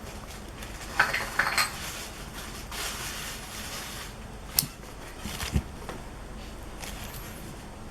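Cables and plug connectors of a car DVR kit being handled: a handful of light, separate clicks and clatters, with a brief rustle near the middle.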